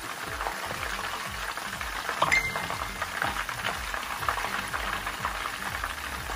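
Hot oil bubbling and crackling as chicken wings deep-fry. A single metallic clink with a short ring comes about two seconds in.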